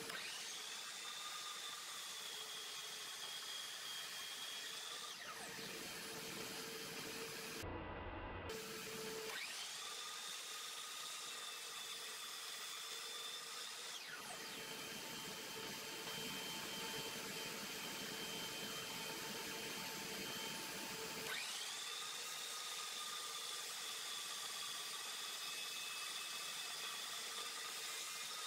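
DeWalt miter saw's motor whining up to speed, running with a high steady whine as the blade cuts through a plum log, then winding down. This happens three times.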